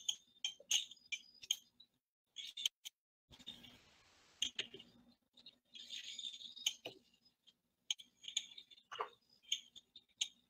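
Scattered short clicks and small handling noises, like a computer mouse being clicked and moved, picked up by a video-call microphone over a faint steady hum.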